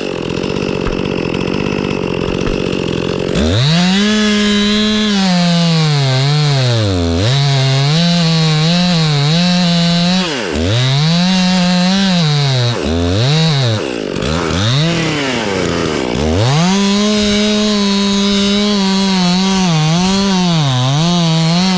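Chainsaw idling for about three seconds, then revved to full throttle in a cut. The revs drop back toward idle and climb again several times. The chain has gone dull and is barely cutting.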